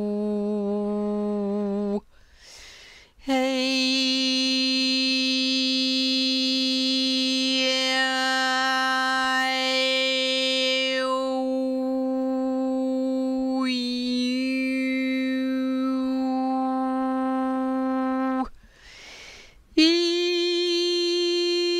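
One voice holding long, steady notes in a toning chant, the vowel shape changing within each note so that different overtones ring out. It pauses twice for a breath, and each new note starts higher than the last.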